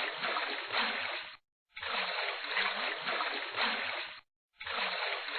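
Splashing-water sound effect from a sea-themed lesson game, playing in a loop. Each pass lasts about two and a half seconds and cuts off abruptly, with two short breaks.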